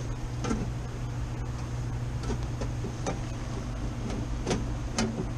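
Steady low hum of running air-conditioning equipment, with about five light clicks and knocks of handling spread through it.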